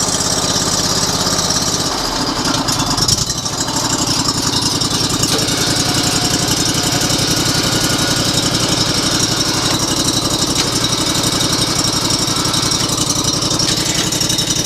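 Portable bandsaw sawmill's engine running after starting: it idles, picks up speed about two seconds in, and then runs steadily at the higher speed.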